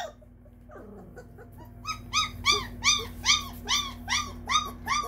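A 20-day-old Great Dane puppy crying in short, repeated high-pitched cries, about three a second, starting about two seconds in; each cry rises and falls in pitch. The owner takes it as the puppy waking and calling for its mother.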